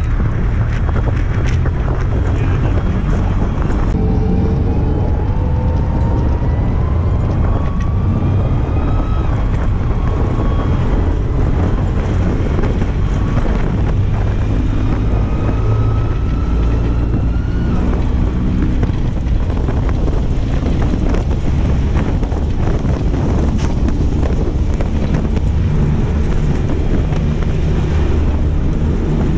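M1A2 Abrams tank driving, its gas turbine engine and tracks running with a heavy low rumble. A whine rises and drops back several times in the first half, and wind buffets the microphone throughout.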